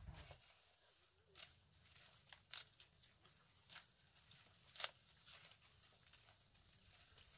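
Near silence with faint, irregular snaps and rustles about once a second, the sharpest about five seconds in.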